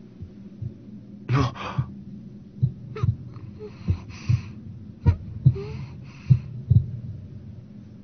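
Heartbeat sound effect: double thumps about every 1.2 seconds, with soft breaths between them over a low steady drone. It marks a dead child's heart starting to beat again as she revives.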